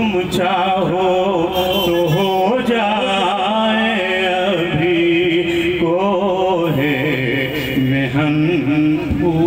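A man singing a naat (Urdu devotional poem) into a public-address microphone, drawing out long, wavering melismatic notes without a break.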